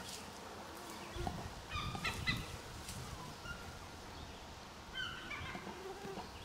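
American black bears calling in short, honking moans that come in clusters about two seconds in and again about five seconds in, along with the low rustle and thud of a bear moving through undergrowth.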